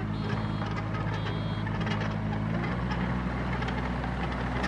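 JCB mini excavator's diesel engine running steadily while the machine tracks and turns, its note changing about two and a half seconds in. A few short high beeps sound over the first couple of seconds.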